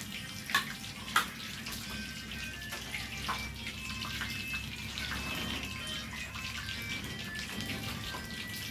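Hot oil sizzling and crackling steadily as battered shrimp fritters (bánh tép chiên bột) deep-fry in a small pot, with two sharp clicks in the first second and a half.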